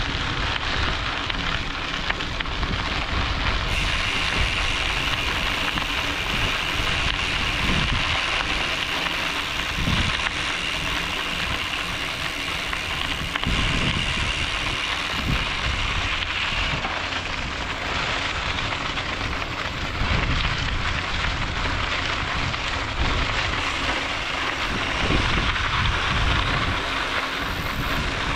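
Mountain bike tyres rolling over hard-packed dirt and gravel: a steady hiss with a low rumble of bumps underneath.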